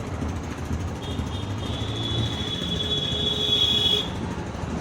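A bike brake giving a steady high-pitched squeal for about three seconds during a brake test, over a constant low rumble of traffic.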